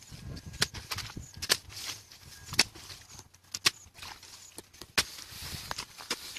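Long-handled hoe chopping and scraping into wet mud and gravel of a stream bed: about ten irregular sharp knocks with soft sloshing between them.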